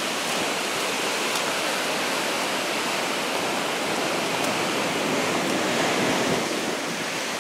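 Heavy storm surf breaking and rushing beneath a pier, a steady wash of crashing waves and foam that swells a little about six seconds in.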